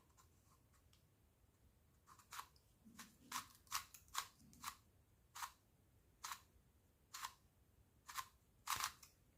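YuXin Little Magic Square-1, a magnetic plastic twisty puzzle, being turned by hand: about a dozen short, sharp clicks as its layers snap into place, starting about two seconds in and coming irregularly.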